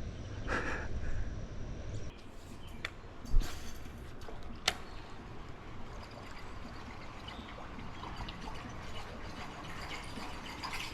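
Water trickling and lapping, with a few sharp knocks and a low thump about three seconds in.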